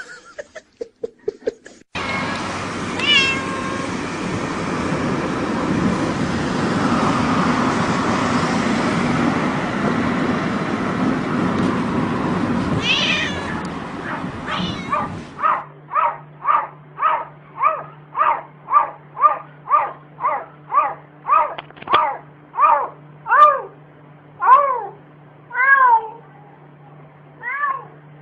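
Domestic cat meowing in a long run of short, repeated calls, about two a second, spreading out near the end. Before it, a loud stretch of rustling noise with a couple of single meows.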